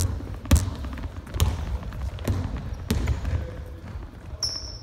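Basketball dribbled on a hardwood gym floor, with a sharp bounce about every second. A short high squeak near the end is typical of sneakers on the court.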